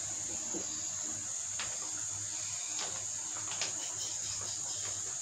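A steady high-pitched insect-like chirring, with a few faint clicks and taps from eating at the table.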